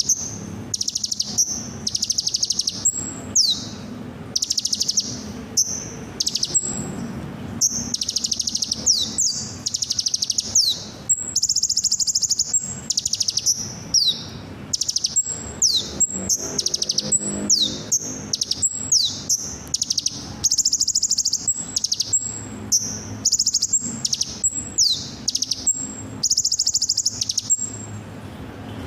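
Kolibri ninja (konin) sunbird song: rapid high-pitched chattering trills broken by quick downward-sliding whistles, repeating continuously. It is a lure recording used to set off a kept bird's full song.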